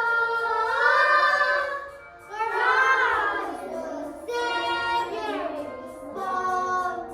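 Young children singing a song in held phrases, with short breaths between them about two and four seconds in.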